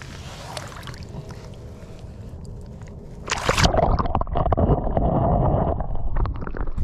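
Faint outdoor hiss, then about three seconds in a sudden splash as a chest-mounted GoPro dips into the lake, followed by loud, muffled underwater gurgling and sloshing heard through the submerged camera, with sharp splashy clicks near the end as it comes back out.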